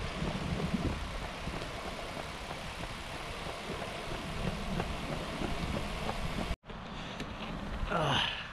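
Steady rush of wind on the microphone and road noise from a bicycle riding on asphalt. It cuts off abruptly about six and a half seconds in, and quieter riding noise follows.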